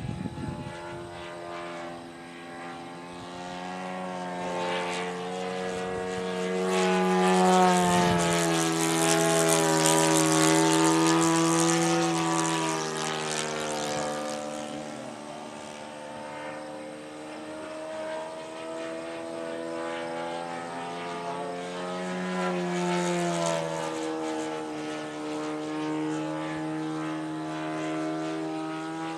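Radio-controlled model Hawker Hurricane flying past with its motor and propeller droning. It grows loudest about a third of the way in, then drops in pitch as it moves away, and a second, smaller pass with the same drop in pitch comes near the end.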